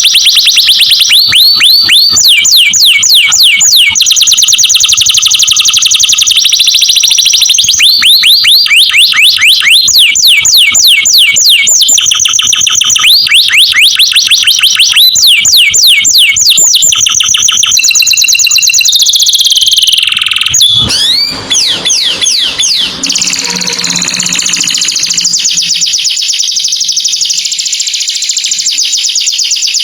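Canary singing: long runs of fast, high trills, each run a quick repeated note that switches to a new pattern every second or two, with a stretch of gliding, warbled notes partway through.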